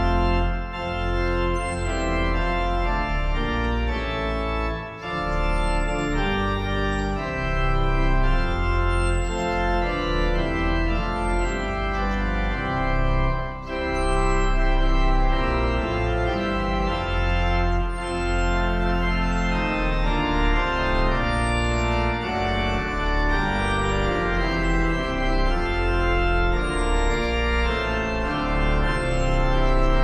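Organ music, sustained chords moving slowly from one to the next, with short high falling chirps repeating every couple of seconds above it.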